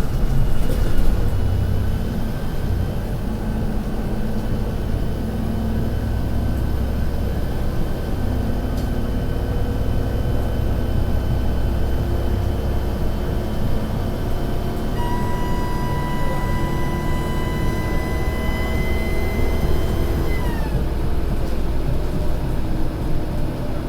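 Volvo B7RLE bus's six-cylinder turbodiesel engine running under way, a low drone with a steady high turbo whistle over it. A second, louder whistle comes in about 15 seconds in, holds, then drops in pitch and fades about 21 seconds in.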